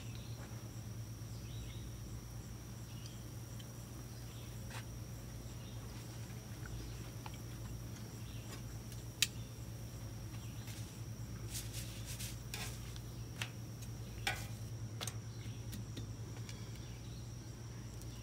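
Steady outdoor insect trill, one high unbroken tone, over a low steady hum. From about halfway come a few sharp clicks, most likely metal kitchen tongs, the loudest about nine seconds in.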